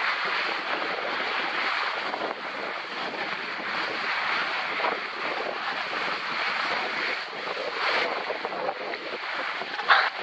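Skis scraping and hissing over firm, crusty snow on a downhill run, with wind rushing over the microphone. Louder scrapes come about eight seconds in and again near the end.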